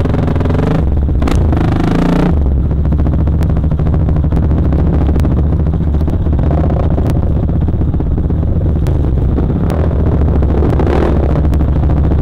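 Dirt bike engine running loud under load on a rough trail, its note shifting with the throttle in the first two seconds and then holding steadier, with sharp clicks now and then.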